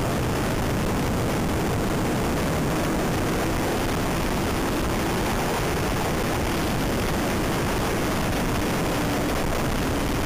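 Wind rushing and buffeting over the microphone of a motorcycle at road speed, a steady loud roar with the engine barely showing beneath it as a faint hum near the end.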